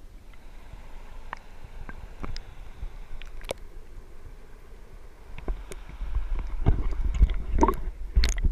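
Muffled sound of a camera submerged in its waterproof housing: scattered sharp clicks and knocks. From about five and a half seconds in comes a louder low rumble with a dense run of knocks and water gurgling as the camera is moved up to the surface.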